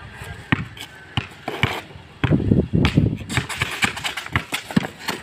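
Basketball dribbled on a concrete court: sharp single bounces about every half second, broken in the middle by a second or so of louder, rumbling scuffing noise.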